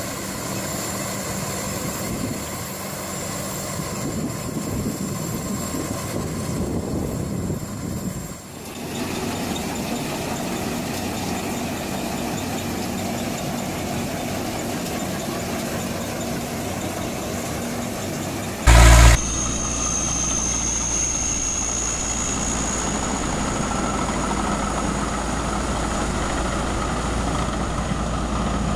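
Harvesting machinery running steadily. First a combine harvester in a sunflower field, then an СК-5M Niva combine unloading seed into a truck, then an AgroStahl pumpkin harvester; the sound changes abruptly at each switch. A brief loud burst comes about two-thirds of the way through.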